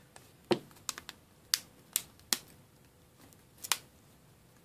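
Battery being fitted into a Samsung Galaxy Core Prime's plastic phone body: about seven separate sharp plastic clicks and snaps, spread unevenly, the last one near the end.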